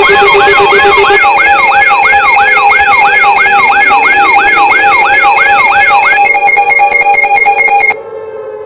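Layered electronic alarm sirens: a fast rising whoop repeating about three times a second over steady high alarm tones, with a slower wailing siren underneath. The whoop stops about six seconds in and the steady tones cut off near the end, leaving the slow wail, much quieter.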